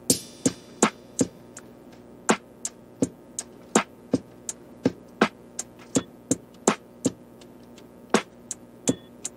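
Background music beginning abruptly: a sparse beat of sharp clicks, about three a second, with short gaps in the pattern.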